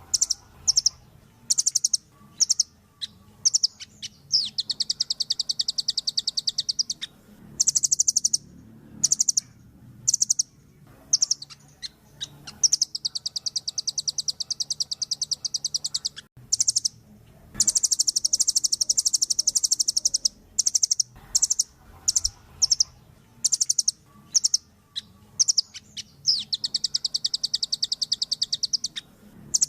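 Velvet-fronted nuthatch calling: sharp, high-pitched chips broken by four long, very rapid trills of a few seconds each.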